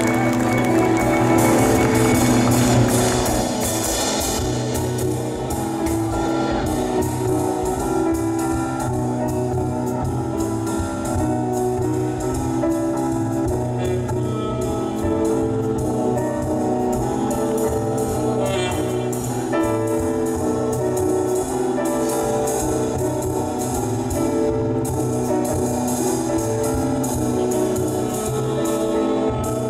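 Live jazz: a tenor saxophone playing a line of changing notes over upright bass and a drum kit with steady cymbal strokes.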